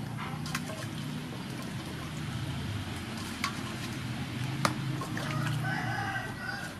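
Water sloshing and dripping as hands wash chilies and limes in an aluminium basin, with a few sharp clicks, over a steady low hum.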